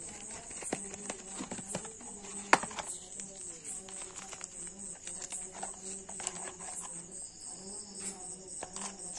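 Crickets chirping steadily in the background, with paper and cardboard rustling and clicking as a power bank's box and instruction leaflet are handled. A sharp click about two and a half seconds in is the loudest sound.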